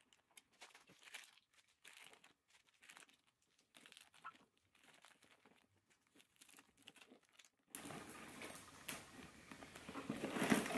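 Faint crinkling and rustling of small wrapped packets and a leather pouch being handled, with scattered soft clicks. The handling gets louder and busier near the end.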